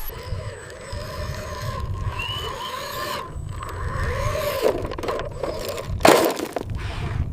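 Small electric motors of a toy RC construction vehicle running with a steady whine, over repeated squeals and scraping, with one loud scrape about six seconds in.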